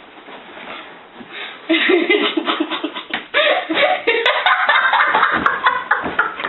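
Low room sound at first, then about a second and a half in, people break into loud, sustained laughter.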